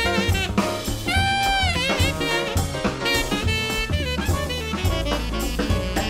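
Jazz background music: a horn lead playing held notes that bend at their ends, over bass and drums.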